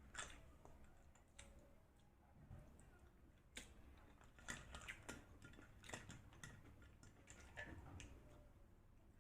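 Faint, scattered clicks and taps from eating at a table, a dozen or so sharp ticks spread over several seconds with quiet pauses between them.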